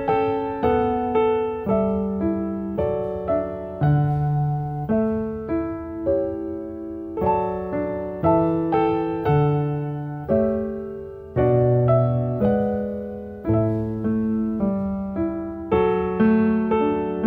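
Piano music: a gentle melody over chords, each note struck and left to fade.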